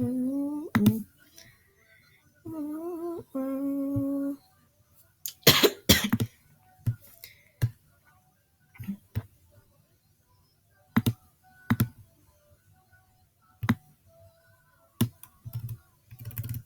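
A man hums a few notes, a rising one at the start and two held ones soon after. Then come sharp single clicks at irregular intervals, some in close pairs.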